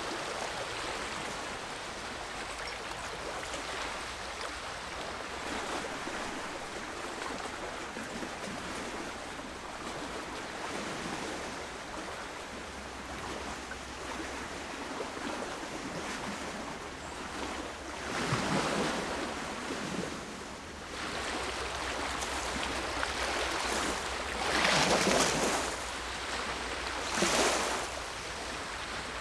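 Small lake waves washing on the shore: a steady rushing wash with a louder surge about two-thirds of the way in and two more near the end.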